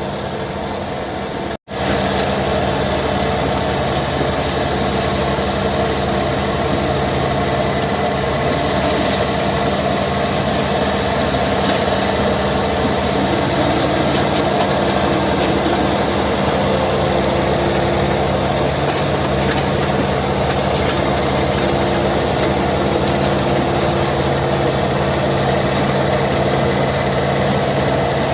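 Diesel engine of a Kobelco SK 50 P mini excavator running steadily, in normal working condition. The sound cuts out for an instant about a second and a half in, then carries on slightly louder.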